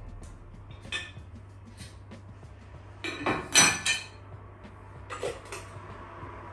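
Dishes and cups clinking and knocking against a metal wire dish-drying rack inside a wall cabinet as they are put away. There is a single knock about a second in, a louder cluster of clatters around the middle, and a few more shortly after.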